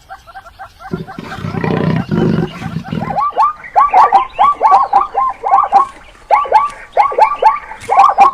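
An animal calling in a rapid series of short, high, chirping calls that grow louder about three seconds in, with low rumbling calls a second or so in.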